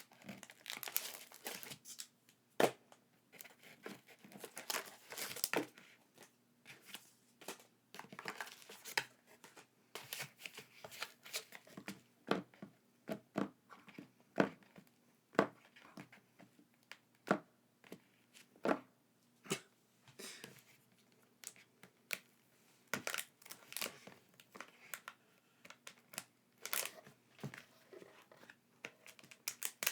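Packaging being handled and unwrapped: irregular crinkling, rustling and tearing with sharp little clicks and snaps throughout.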